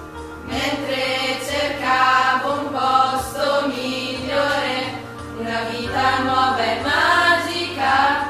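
A group of voices singing a melody together, in sung phrases that begin about half a second in.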